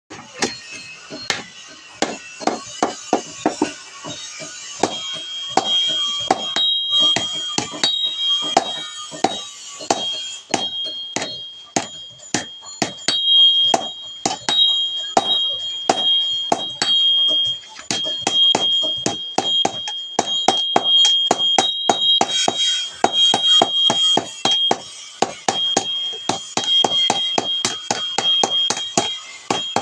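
Blacksmith's hand hammer repeatedly striking metal on an anvil, about two blows a second, forging a blade tip. A steady high ringing tone runs behind the blows from about five seconds in.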